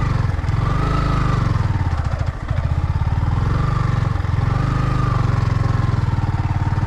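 Motorcycle engine running steadily with a low, pulsing rumble, its pitch rising and falling gently with the throttle.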